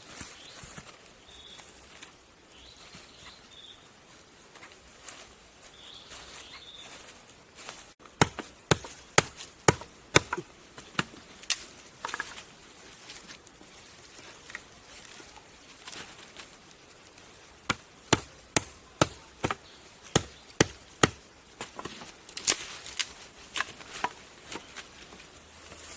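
Sharp chopping strikes of a blade into wood, in runs of several blows about two a second, starting about eight seconds in and broken by pauses. Faint birdsong before the chopping starts.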